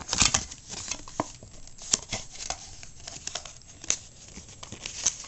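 Paper and cardboard packaging rustling and crinkling, with irregular sharp clicks and scrapes, as a tight-fitting instruction booklet is worked out of an iPod Nano box. The loudest rustle comes right at the start.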